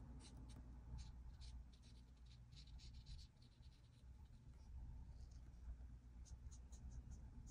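Faint scratching of a marker nib on paper in quick runs of short colouring strokes, with a lull about halfway before the strokes start again.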